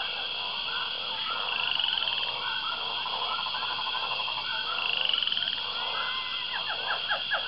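Chorus of many frogs calling over a steady high insect drone, with two rising trills a few seconds apart and a fast pulsed trill between them.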